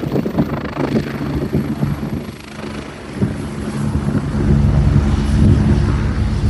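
Helicopter running on the ground, its engine and rotor hum building louder and steadier from about halfway through. Wind buffets the microphone in the first half.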